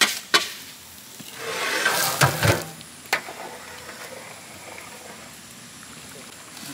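Rock salt tipped into a big pot of cooking biryani: a few sharp knocks, a sizzling rush about two seconds in, then a low steady hiss from the pot.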